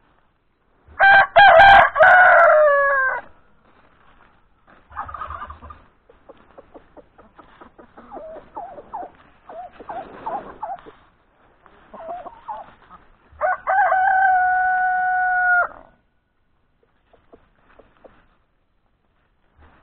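Roosters crowing twice: a loud crow about a second in that drops in pitch at its end, and a long, level crow near the end that cuts off sharply. Between the crows, hens cluck more quietly.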